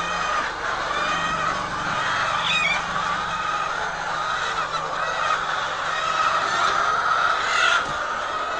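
A flock of laying hens calling and clucking together, a steady dense din of many overlapping calls.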